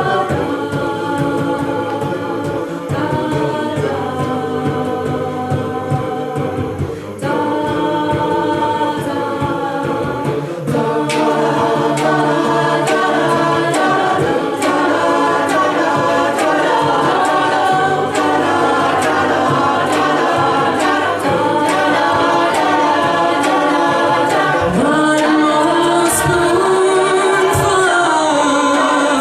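A cappella group singing wordless, sustained backing harmonies, with sharp vocal-percussion clicks keeping the beat. The voices grow louder and busier about eleven seconds in, and near the end one low voice slides up and holds a higher note.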